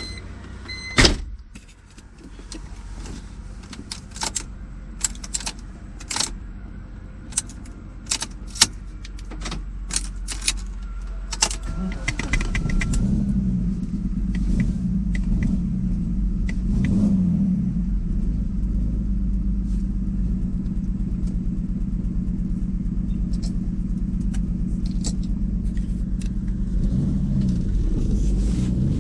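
Sharp clicks and clinks, like keys and handling, over a faint low hum. About twelve seconds in, the turbocharged BMW E46's engine comes up to a steady, pulsing idle, and the revs start to rise near the end. The engine is running after a turbo failure that the owner suspects, following heavy smoke and an oil spray.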